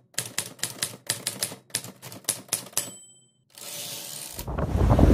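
Typewriter sound effect typing out a title: a rapid run of clacks, about four a second, ending in a short bell ding about three seconds in. Near the end, loud wind buffeting the microphone and crashing surf come in.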